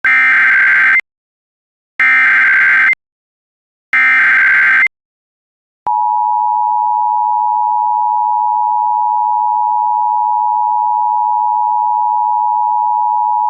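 Emergency Alert System activation: three one-second bursts of SAME digital header data, a second apart, encoding the alert (a Civil Danger Warning), then about six seconds in the steady EAS two-tone attention signal (853 and 960 Hz sounded together) starts and holds.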